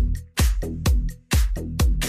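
Background dance music in a disco/house style, with a steady kick-drum beat about twice a second.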